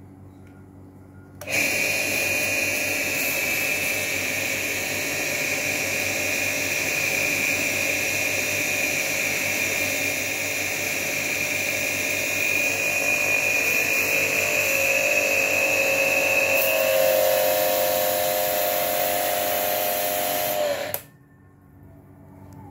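Electric jet cleaner (high-pressure washer) switched on, its motor and pump running with a steady high whine, then cutting off sharply about 21 seconds in. The pitch shifts a few seconds before it stops. The machine is pressurising a newly fitted quick-release hose coupler, which holds without leaking or dripping.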